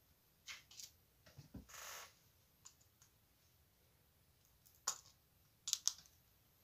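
Scattered light clicks and taps: two about half a second in, a short rustle around two seconds, then a sharp click near five seconds and a quick double click near six.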